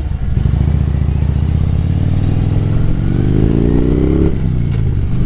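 Harley-Davidson motorcycle's V-twin engine running under way, its pitch rising steadily for about two seconds as it accelerates, then dropping back about four seconds in with a gear change.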